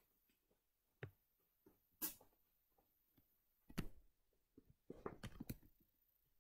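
Soft handling sounds of a plastic zip tie being threaded through a yoga mat and around a wire fence panel: scattered single clicks and rustles, then a short run of quick clicks about five seconds in.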